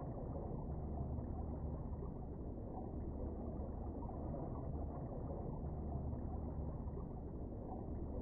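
Steady, muffled low rumble of underwater ambience picked up by a camera sealed in a waterproof housing below lake ice.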